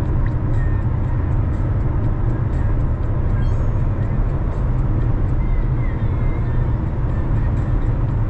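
Steady low rumble of a car driving: road and engine noise that holds even throughout.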